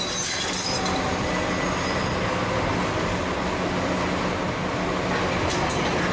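Heavy diesel site machinery running steadily: a Cat tracked excavator's engine working as the machine swings its arm round.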